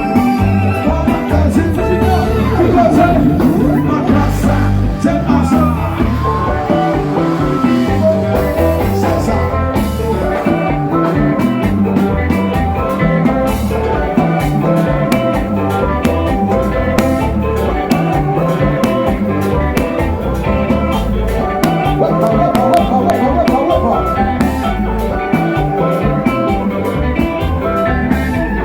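Loud music with a steady beat and low bass, with some singing over it.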